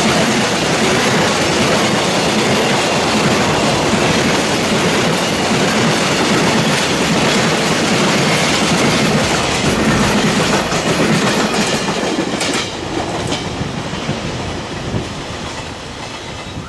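A freight train of tank wagons and container wagons rolling past, a continuous rush of wheel and rail noise with the wheels clattering over the rail joints. The noise eases about twelve seconds in and keeps falling toward the end.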